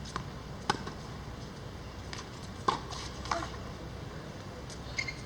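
A handful of short, sharp clicks or light knocks, spaced irregularly, over a steady low background hum.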